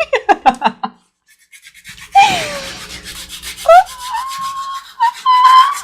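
Heel scrubber rasping on the dry skin of a heel in quick back-and-forth strokes, about six a second, stopping after about a second. After a short pause the scrubbing starts again under a loud, drawn-out, high-pitched vocal squeal that glides down and then holds one note.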